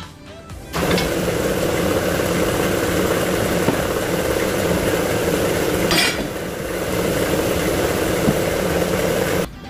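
Workshop air compressor running with a steady mechanical noise, starting up about a second in and cutting off abruptly near the end. A single brief metallic clink about six seconds in.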